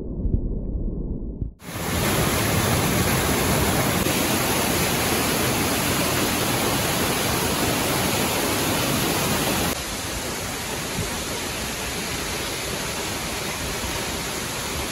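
Muffled low rumble of water heard underwater, then an abrupt change to the steady, even rush of waterfalls; the rush drops a little in level about ten seconds in, over the tall Plitvice waterfall.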